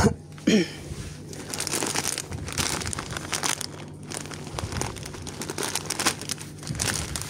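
Thin plastic packaging of a packet of egg noodles crinkling and rustling as it is handled, with a steady low hum underneath.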